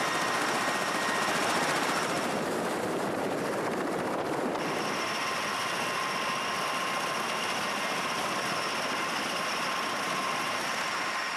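MV-22 Osprey tiltrotor running on the ground with its proprotors turning: a steady, dense rotor and engine noise with a high turbine whine. The whine dims for a couple of seconds and comes back abruptly about four and a half seconds in.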